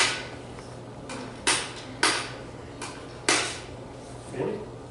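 Coins dropped one at a time into a collection container, clinking: five sharp metallic clinks at uneven intervals, each ringing briefly, and a softer one near the end.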